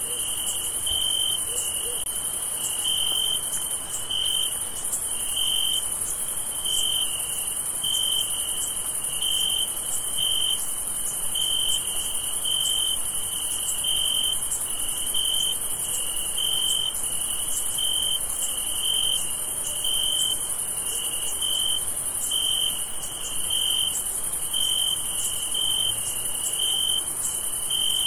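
Night crickets chirping: a high, even chirp repeating a little more than once a second, over a continuous higher-pitched insect buzz.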